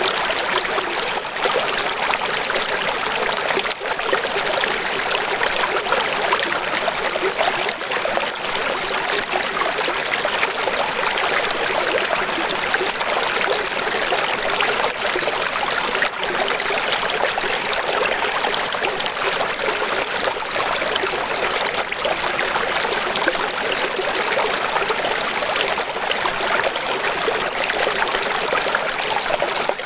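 Steady running water, an even hiss-like rush with little deep rumble and no change throughout.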